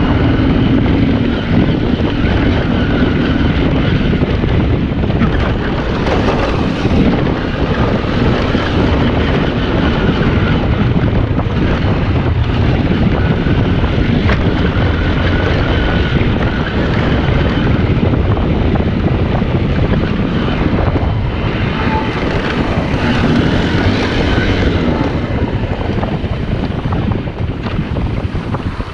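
Small single-cylinder motorcycle engine running while riding, its pitch rising and falling with the throttle, under heavy wind buffeting on the microphone.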